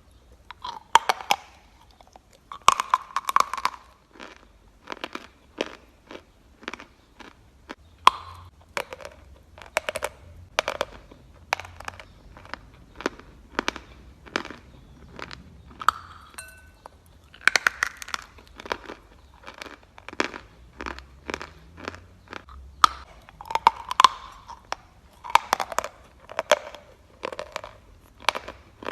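Lumps of natural chalk being bitten and chewed close to the microphone: a fast run of sharp, dry crunches, several a second, with short pauses between bites.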